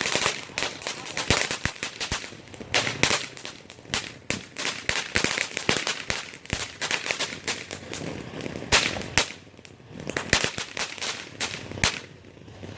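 Consumer fireworks going off: a rapid, irregular string of sharp pops and crackles, easing off briefly about three-quarters of the way through.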